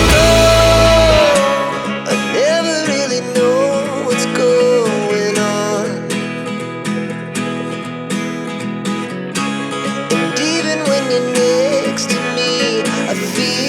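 Background music: a guitar-led song with a melody line gliding over it. The heavy low end drops out about a second in, leaving lighter guitar accompaniment.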